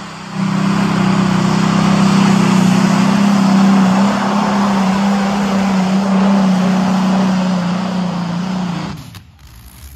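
Modified pulling tractor running flat out as it hauls the weight sled down the track, a loud, steady, heavy engine note throughout. The sound drops away sharply about nine seconds in.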